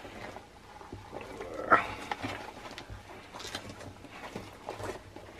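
Faint crackling and rustling as the soft, disintegrating lining and insole of an old leather work boot are peeled and torn away by hand, with one brief, louder sound about a second and a half in.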